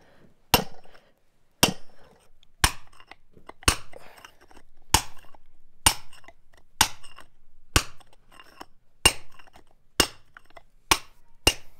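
A hammer striking the head of a hand-forged stone drill, boring a hole into a block of stone: sharp metallic clinks about once a second, a dozen blows in all, each with a short ring.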